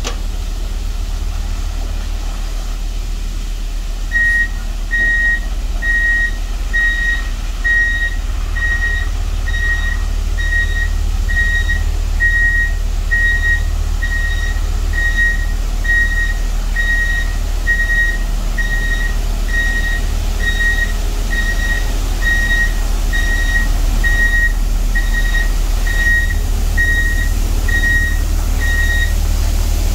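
Water tanker truck reversing, its diesel engine running low and steady. About four seconds in, its reversing alarm starts beeping in a regular train a little under two beeps a second and keeps on until near the end.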